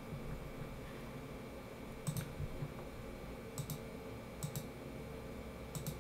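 Computer mouse button clicking four times, each click a quick pair of sharp ticks, spaced unevenly about a second apart, over a faint low hum.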